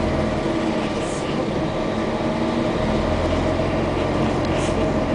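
Steady engine hum and rumble heard from inside a moving vehicle, the low rumble growing stronger about three seconds in.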